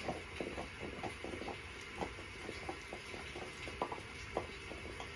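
Baby toys knocking and clicking together as an infant rummages through a pile of them, in irregular light taps over steady room noise. The two sharpest knocks come about four seconds in.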